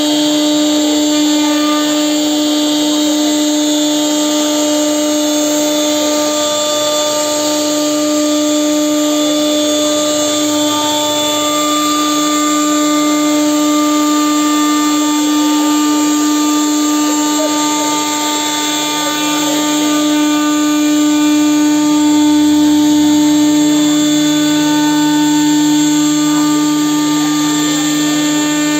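CNC router spindle running at a steady whine while its bit mills grooves into a wooden door panel, with a rough cutting noise of the bit chewing through the wood under the tone.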